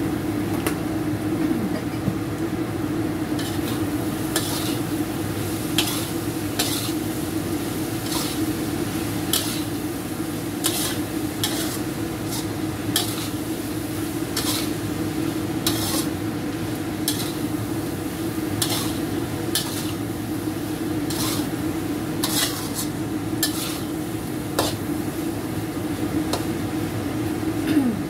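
A spatula stirring diced potatoes in a non-stick wok: repeated irregular scrapes and taps against the pan, about one a second, with the food sizzling, over a steady low hum.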